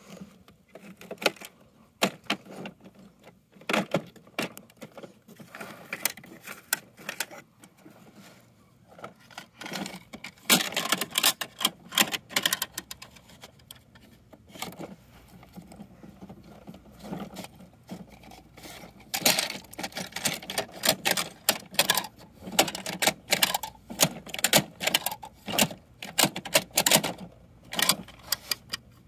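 Hard plastic clicking and rattling as a toy side-loading garbage truck's bin-lifter arm is worked by hand and plastic toy bins are handled. The clicks come in quick, irregular runs, busiest about ten seconds in and again from about nineteen seconds to near the end.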